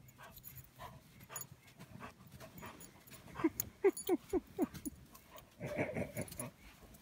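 Dog plunging through deep snow: light crunching of snow at first, then a quick run of about six short whimpers, each falling in pitch, and a breathy huff near the end.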